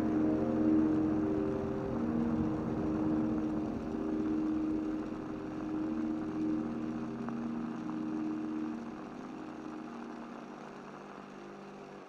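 Closing bars of a lo-fi soft-piano piece: low, held piano chords changing every few seconds over a bed of hiss and rumble from added noise textures, slowly fading out.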